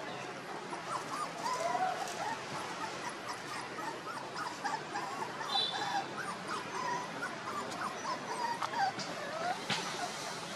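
Young puppies whimpering: a string of short, high-pitched cries that rise and fall, one after another.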